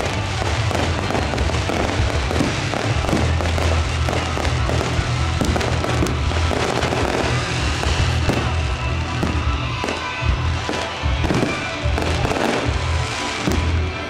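Fireworks display: a rapid, unbroken stream of bangs and crackles from bursting shells and crackling stars, with music playing underneath.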